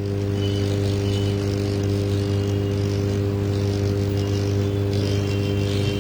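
Steady electrical hum with evenly spaced overtones, under a light hiss of workshop equipment.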